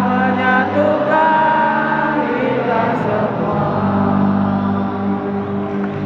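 A song sung by many voices together, with held notes and glides over a steady low accompaniment.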